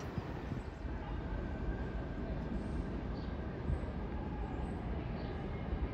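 New York City subway train running steadily on the tracks.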